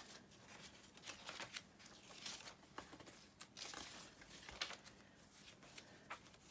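Soft rustling of tea-dyed paper pages being turned one after another in a wire-bound handmade journal, a string of quiet paper flutters and brushes, with one sharper rustle a little past halfway.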